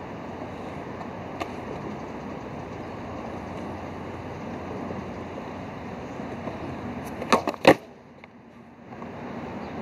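Skateboard deck and wheels clacking sharply against concrete in a quick run of about four loud hits, some seven seconds in, over a steady background hiss.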